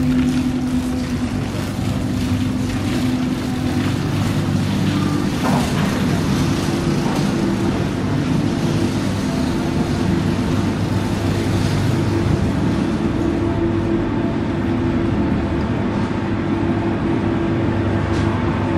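Passenger ferry's engine running on board, a steady low drone with a constant hum.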